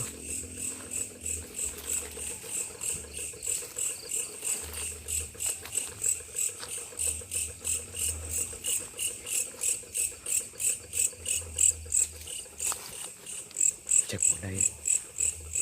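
Night insects chirping in a steady, even pulse, about three high-pitched chirps a second. A faint low hum comes and goes underneath.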